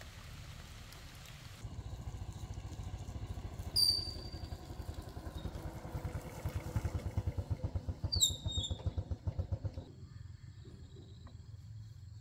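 Rain patter gives way after about a second and a half to a small underbone motorcycle's engine, which runs with a steady low pulsing and grows louder as it comes close. It is switched off abruptly about ten seconds in. Two short, sharp high chirps, falling in pitch, stand out over the engine near 4 s and 8 s.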